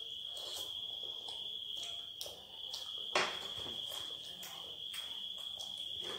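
Soft clicks and rustles of people eating roti and sabzi at a glass-topped table, with a sharper knock about three seconds in. A steady high-pitched tone sounds under it all.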